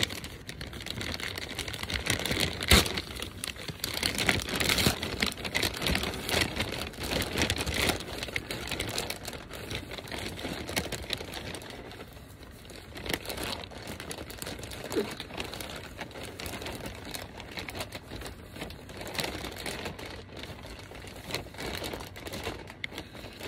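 A mailed package of merchandise being opened and handled: irregular crinkling and rustling of packaging, with many small clicks and knocks, the sharpest about three seconds in.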